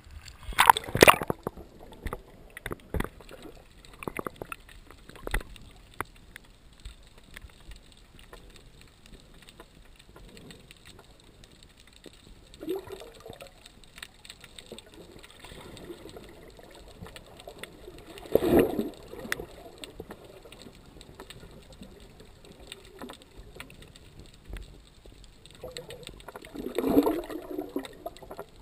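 Water slapping and splashing against a GoPro housing at the surface, then the muffled hush of the camera underwater, broken by a few swelling rushes of water and bubbles. The loudest comes near the end, as a snorkeler dives down beside the camera in a cloud of bubbles.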